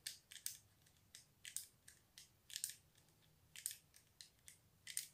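Shimano 8-speed rear trigger shifter worked by hand, its ratchet clicking through the gears in short faint clicks, two or three at a time, about once a second.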